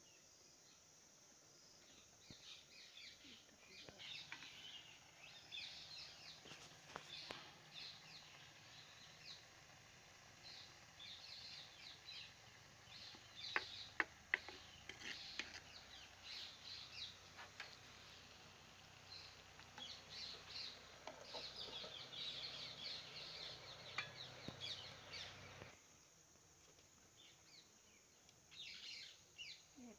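Birds chirping faintly, with a ladle stirring food in a clay cooking pot and knocking against it in a few sharp clinks about halfway through; the sounds drop away suddenly a few seconds before the end.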